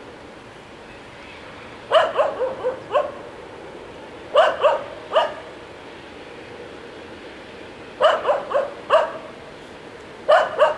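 A dog barking in four bouts of several quick barks each, spaced a few seconds apart, over faint steady background noise.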